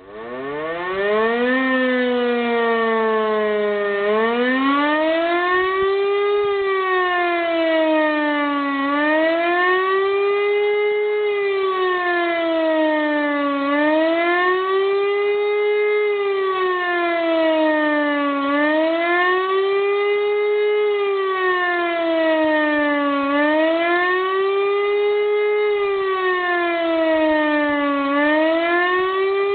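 E57 electric motor siren spinning up from a low pitch and then wailing, its pitch rising and falling about every four and a half seconds. This is the rising-and-falling 'Warnung' (warning) signal sounded as a siren test.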